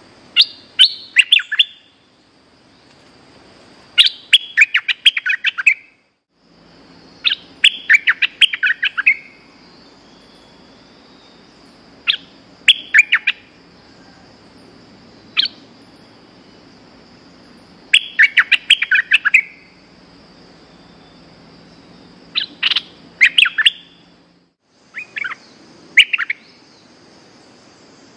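Bulbul singing: short, bubbly bursts of rapid chirping notes, about eight phrases a few seconds apart, from a caged decoy bird used to lure wild birds of its kind. A faint steady high drone runs behind.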